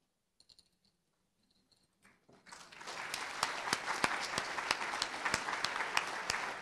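Audience applauding: a few faint clicks, then about two seconds in clapping starts and builds quickly to steady applause with many individual claps.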